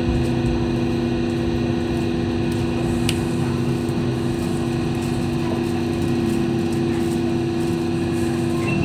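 Hong Kong Light Rail car heard from inside the cabin as it moves slowly along a station platform: a steady electrical hum with two low tones over the rumble of the wheels on the track. A single brief click comes about three seconds in.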